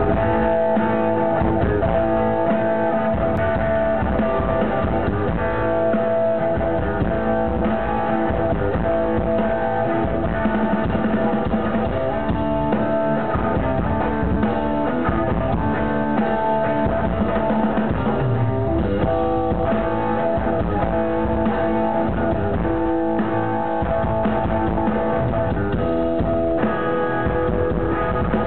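Live rock band playing: strummed electric guitar over bass and a drum kit, steady and continuous.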